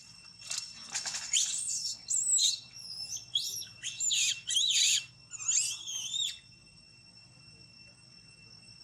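A baby monkey giving a rapid string of high-pitched squeals and cries that rise and fall in pitch, stopping about two-thirds of the way through.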